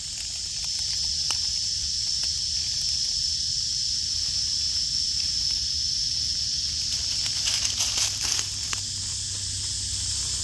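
A steady high-pitched insect drone, with a few brief rustles of dry leaf litter about eight seconds in.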